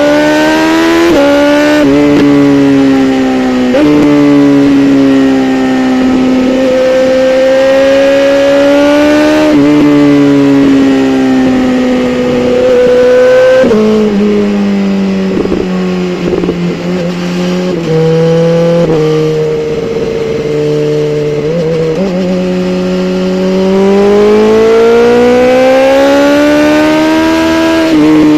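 BMW S1000RR's inline-four engine running loud, its pitch holding, then dropping suddenly several times and sitting lower for a few seconds in the middle, before climbing steadily over the last few seconds as the revs build.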